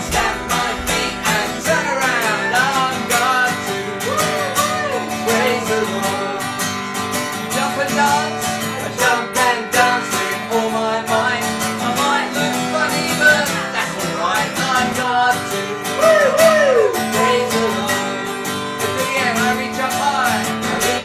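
Yamaha acoustic guitar strummed in a steady rhythm, with a man and a woman singing a children's action song over it.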